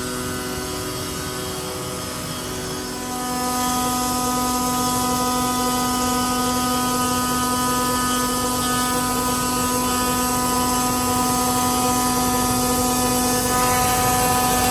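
CNC router spindle running with a steady whine as it surfaces a granadillo hardwood slab, getting louder about three seconds in.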